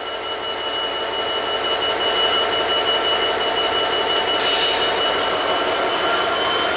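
Freightliner Class 66 diesel-electric locomotive hauling a train of engineering wagons slowly through a station, its engine running with a steady high-pitched whine. There is a brief hiss about four and a half seconds in.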